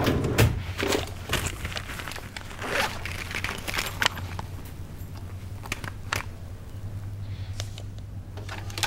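Footsteps on a hard floor, then rustling and a scatter of light clicks and knocks as small objects and papers are handled, over a steady low hum.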